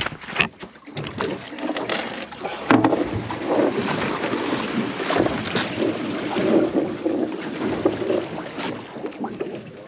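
Steady rushing noise of water and wind aboard a small boat at sea, with a few sharp clicks in the first second and growing louder about three seconds in.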